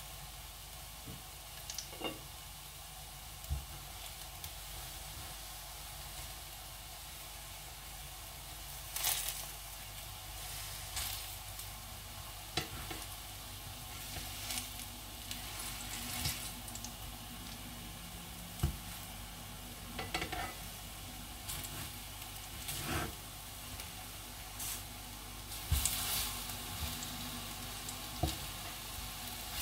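Banana slices sizzling in oil in a nonstick frying pan, with repeated short clicks and knocks of tongs against the pan as the slices are turned, mostly from about nine seconds in.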